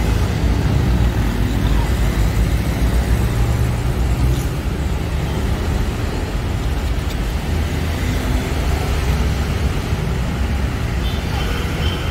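Steady road traffic rumble, a continuous low drone of passing vehicles with no distinct knocks.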